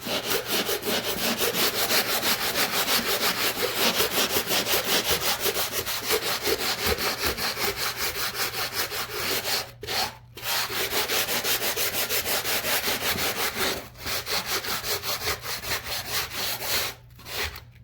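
Hand sanding with the coarse side of a sanding sponge, rubbed quickly back and forth over dried joint compound on a drywall seam, about four strokes a second. The scraping stops briefly about ten seconds in, again around fourteen seconds, and near the end.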